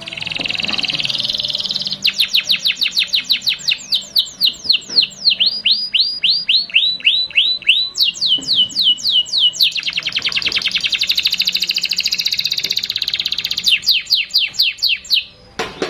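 Domestic canary singing a long, loud, unbroken song of rapid trills. Each trill is a run of repeated downward-sweeping notes, and the speed changes from one run to the next, from very fast buzzy rolls to slower, distinct notes. The song stops abruptly shortly before the end.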